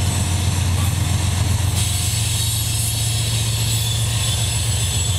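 Loaded coal hopper cars of a CSX unit train rolling by, with the steady low drone of a mid-train distributed-power diesel locomotive as it comes alongside. The rolling wheel and rail noise grows brighter about two seconds in.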